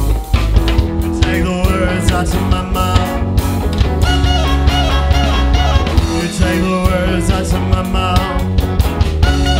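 Live rock band playing an instrumental passage: electric guitars over a drum kit, with a steady beat and cymbal hits.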